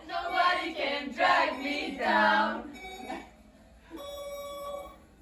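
Young women's voices singing for about three seconds, followed about a second later by a steady electronic tone lasting about a second.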